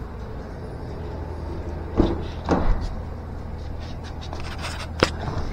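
Footsteps on a concrete floor, then the driver's door of a 2018 Ford Escape unlatching with a sharp click near the end, over a steady low hum.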